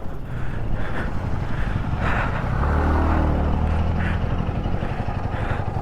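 Royal Enfield Himalayan 450 motorcycle engine running steadily while under way, a continuous low drone.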